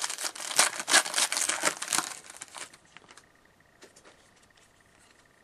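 Foil wrapper of a hockey card pack being torn open and crinkled for about three seconds, then a few faint clicks.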